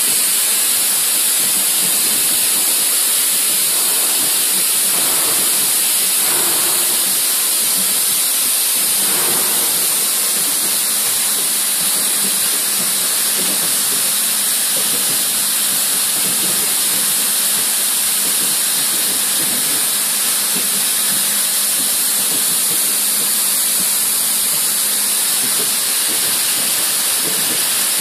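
Flywheel of a Voronezh KB8546 4000-tonne hot forging press spinning with the press idle, a steady hiss with no press strokes.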